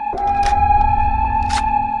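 Background music: a sustained, droning synth tone over a low rumble, with a few faint ticks.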